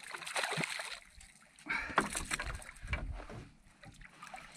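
Water splashing and knocking around a fishing boat, in irregular bursts with sharp clicks and a quieter spell near the end.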